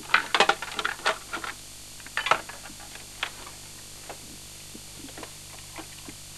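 Plastic clicks and knocks from a hand handling a stack of VCRs and their cables. A quick cluster comes in the first second and a half, another around two seconds in, then a few lighter ticks. A steady hiss and low hum lie under them, from the noisy VHS playback.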